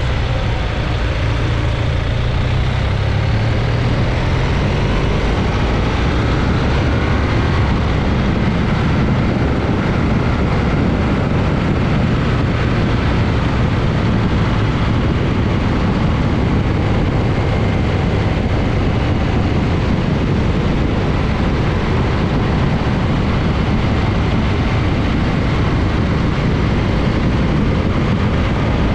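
Heavy wind noise on the microphone of a moving BMW R1200GS Adventure motorcycle, steady throughout, with the bike's boxer-twin engine running underneath.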